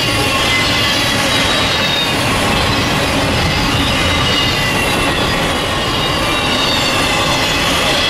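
Double-stack intermodal freight train's container well cars rolling past: a steady, loud rolling noise of steel wheels on rail, with faint high wheel squeal that slowly falls in pitch.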